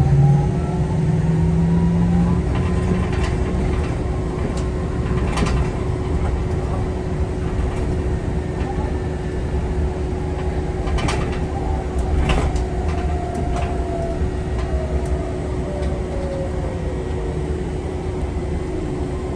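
City bus heard from inside the cabin while driving: a steady low rumble with a motor whine that rises in pitch as the bus picks up speed and falls away as it slows to a stop near the end, with a few sharp rattles along the way.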